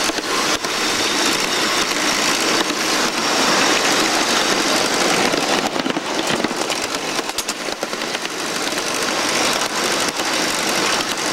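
Ride-on live steam Shay locomotive and its cars running along the track: a steady noisy running sound with a few sharp clicks.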